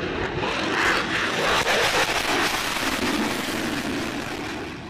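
F-15 fighter jet's engines at full power as it climbs away just after takeoff: a loud, even jet rush, strongest about one to two seconds in and fading toward the end.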